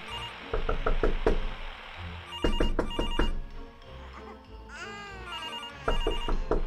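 A telephone rings in repeated short bursts over eerie music, with several heavy thumps and a falling wail near the middle.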